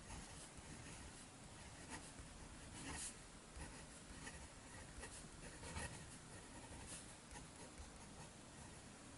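Faint scratching of a fountain pen's medium steel nib across 120 gsm copy paper as words are written in short strokes.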